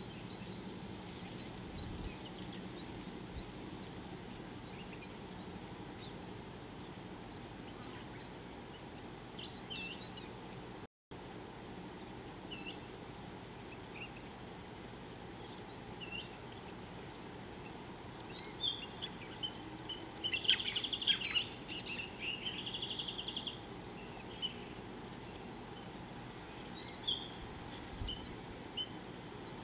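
Wild birds calling at a watering hole: scattered short, high chirps over a steady background hiss, with a burst of quick, rapidly repeated chirps about two-thirds of the way through.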